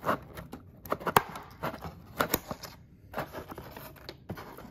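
Fiskars scissors snipping paper-cord twist ties on a cardboard packaging insert, with the cord and cardboard rustling as it is pulled loose. The snips come as a string of short, sharp clicks at uneven intervals.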